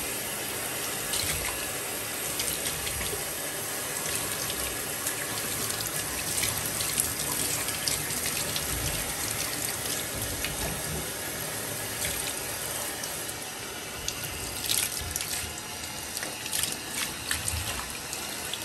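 Handheld shower head spraying water onto a wet malamute's legs and into the bathtub: a steady hiss of running water, with a few sharper splashes in the latter part.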